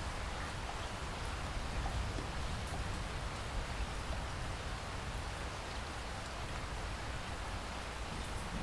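Steady rain falling, an even hiss with faint scattered drops and no thunder.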